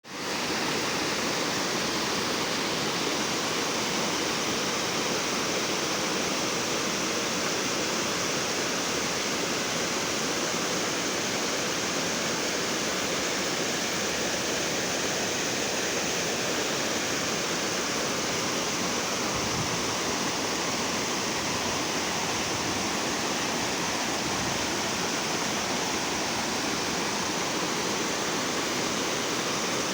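Waterfall: falling water in a steady, unbroken rush.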